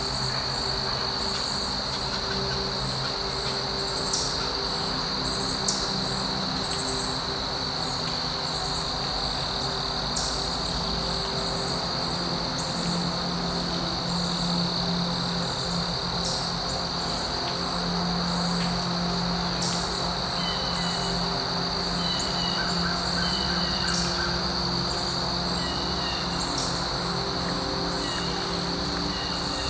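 A steady, high-pitched insect trill, with scattered sharp bird chirps and, about two-thirds of the way in, a bird repeating a short note over and over.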